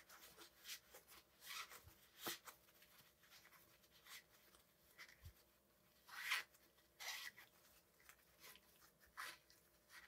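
Faint rustling and rubbing of a paper towel wiping out the pedal threads of a bicycle crank arm, in short, scattered strokes.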